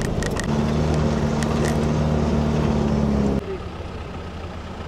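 4x4 jeep engine running steadily, heard from aboard while it drives over a rough gravel riverbed, with a few rattles in the first two seconds. About three and a half seconds in, the sound cuts abruptly to a quieter engine drone.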